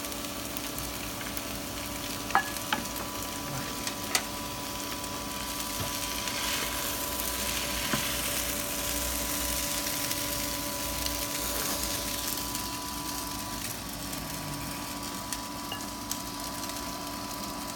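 Seafood and vegetables sizzling in a hot wok as a wooden spatula stirs and scoops them, with a couple of sharp spatula knocks in the first few seconds. The sizzle swells through the middle and eases off toward the end.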